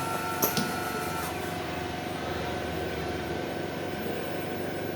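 Automatic dual-station PCB soldering machine running with a steady hum of several tones. Two sharp clicks come about half a second in, and a higher whine and hiss stop about a second and a half in.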